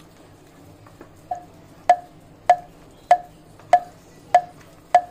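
A porcelain mixing bowl knocking rhythmically as chicken pieces are kneaded in batter by hand. There are about seven short, ringing knocks, evenly spaced a little under two a second, starting about a second in.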